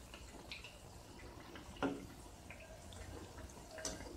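Spinach and urad-dal vadas deep-frying in oil in a kadai: a faint sizzle with scattered small crackles and pops. There is a single louder knock about two seconds in, from the slotted spoon turning them in the pan.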